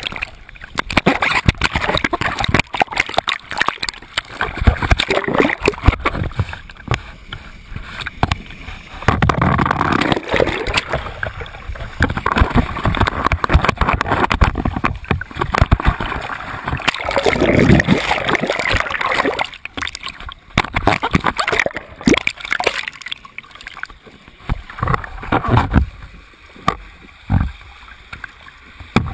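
Turbulent whirlpool water splashing and gurgling, in irregular surges and sharp splashes.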